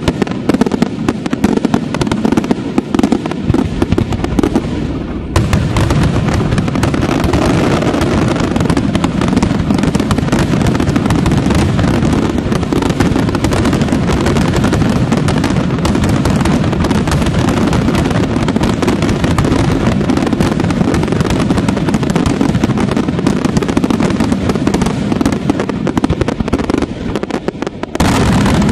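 A dense aerial fireworks barrage: rapid, overlapping shell bursts and crackling with no gaps between them, growing fuller and more continuous about five seconds in.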